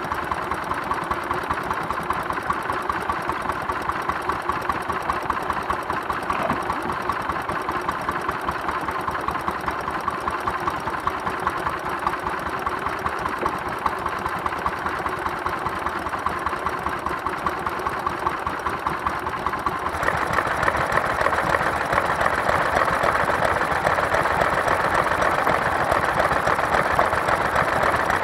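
Vintage stationary engines running with a steady, rapid chugging beat. About two-thirds of the way through, the sound changes abruptly to a louder, faster clatter.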